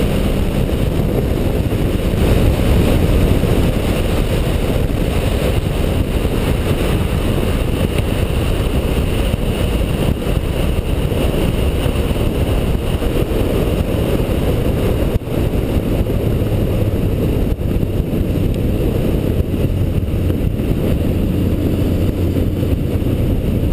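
Motorcycle engine running steadily at road speed, heard from a camera mounted on the bike, with heavy wind rush on the microphone.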